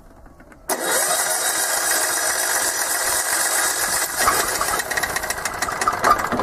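Electric starter cranking a Kipor 186F single-cylinder diesel, cutting in suddenly about a second in and turning the engine over steadily. The fuel system is still air-locked, so the engine doesn't take.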